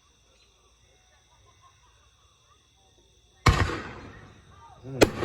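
Two firework bangs about a second and a half apart. The first comes about three and a half seconds in, and each is followed by a long rumbling echo and crackle.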